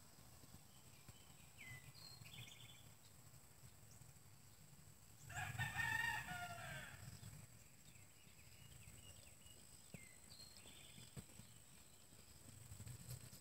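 A rooster crows once, about five seconds in, a single call under two seconds long that drops in pitch at the end. Faint short chirps come twice, over a thin steady high tone.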